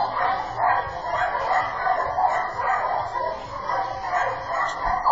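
Dog barking over and over, about two or three barks a second.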